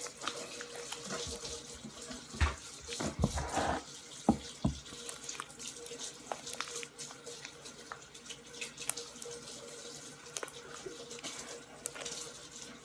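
Tap water running into a sink as a spoon is rinsed clean, with a few knocks against the sink or counter, most of them between about 2 and 5 seconds in.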